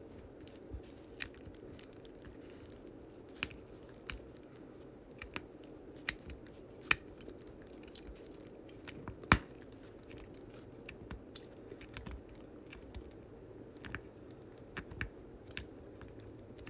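Irregular small clicks and taps of round resin diamond-painting drills being picked up with a drill pen and set onto the sticky canvas, one louder tap about nine seconds in, over a steady low hum.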